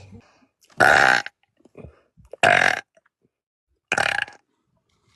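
A person belching loudly three times in a row, about a second and a half apart, each burp lasting about half a second.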